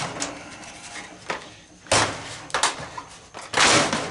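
Hammer blows and cracking of hard plastic as a plastic horse prop is broken apart: several sharp knocks, with the loudest a longer crunch near the end.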